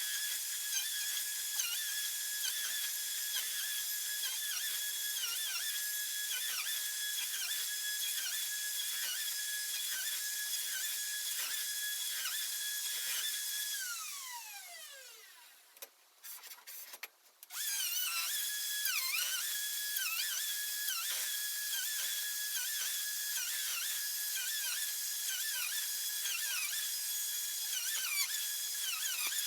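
DeWalt router on a flattening sled running with a high whine, its pitch dipping briefly again and again as the bit bites into the maple slab. About halfway through it is switched off and winds down in a falling whine. After a few seconds of a few clicks it is running again at full speed.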